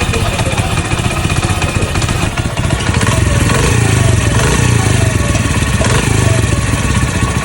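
Motorcycle engine running steadily at idle, a little louder from about three seconds in.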